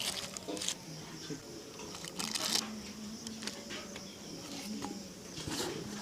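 Shoe-shining work: a few short, scattered rubbing strokes on a shoe, with a longer stroke a couple of seconds in, over a faint steady hum.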